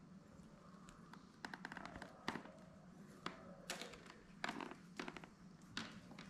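Faint, scattered small clicks and taps, some in quick runs, from a clip-on microphone's cable and small plastic parts being handled.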